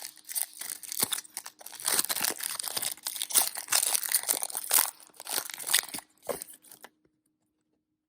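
A foil trading-card pack wrapper being torn open and crinkled: a dense crackle of plastic foil that dies away about a second before the end.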